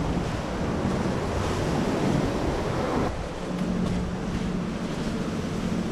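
Gusty storm wind rushing and buffeting the action camera's microphone, a steady roar of noise that swells and eases slightly, with a faint low hum in the second half.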